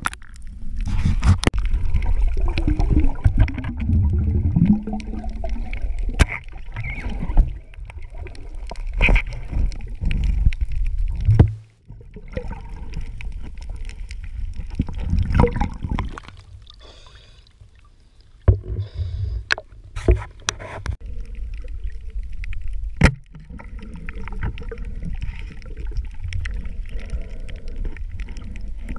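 Water sounds heard by a camera held underwater: low churning and gurgling as it moves through the water, with scattered sharp knocks and clicks. The sound is louder for the first dozen seconds, drops out suddenly, then carries on more quietly.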